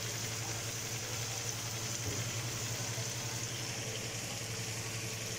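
Steady low mechanical hum with a constant hiss from a running machine.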